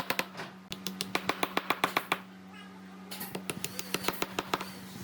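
Quick runs of sharp taps, about eight a second, in three bursts with short pauses between, over a steady low hum.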